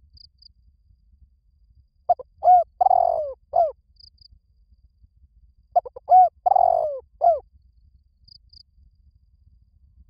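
Spotted dove cooing: two matching phrases of about four low coos each, with a longer rolling coo in the middle, the first about two seconds in and the second about four seconds later. A few faint, short, high chirps fall between them.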